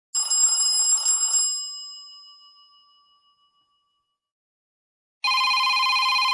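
Two stock Android phone alert tones played back to back: a bright bell-like chime that strikes just after the start and rings away over about three seconds, then, after a silent gap, a steady chord of several high tones that begins about five seconds in and cuts off abruptly about a second later.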